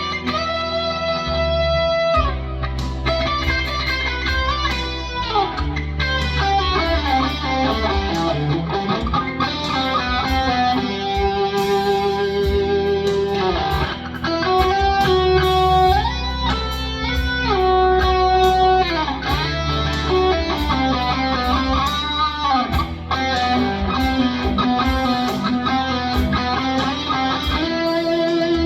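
Electric rock guitar played through a Fractal Audio FM9 amp modeller, improvising sustained lead lines in E minor with string bends and slides, over a steady low bass backing.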